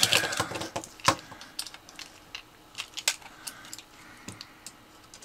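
Light clicks and taps of a screwdriver and small metal parts on a metal robot-rover chassis being handled. The clicks are scattered, with the sharpest about a second in.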